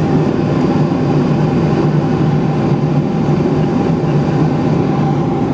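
Steady running noise of a vehicle: a loud, even rumble with a low hum that holds unchanged.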